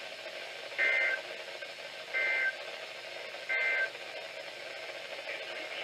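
Emergency Alert System end-of-message data burst over weather radio: three short bursts of two-tone digital warble, about 1.4 seconds apart, over steady radio hiss. The bursts signal the end of the alert broadcast.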